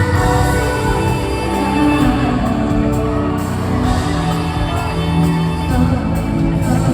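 Pop song performed live through an arena sound system, with a singing voice over the backing music.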